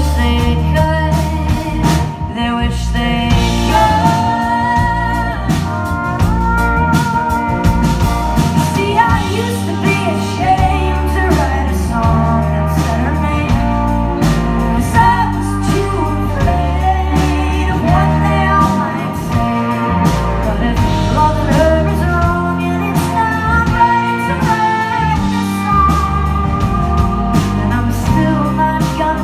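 A live rock band playing a song: a woman sings lead over electric guitar, bass guitar and drums.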